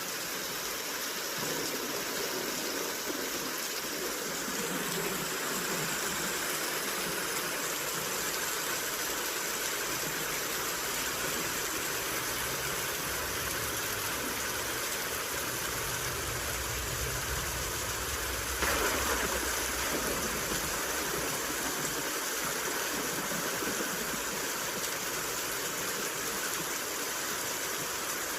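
Steady rain falling, an even hiss. About halfway through a low thunder rumble swells, and about two-thirds through a sudden crack of thunder rolls away.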